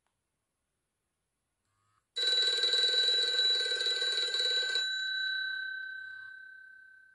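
A Nokia X2-01 mobile phone plays one of its built-in clock alert tones through its loudspeaker. A ringing alert starts about two seconds in and stops after nearly three seconds, leaving a single tone that fades away.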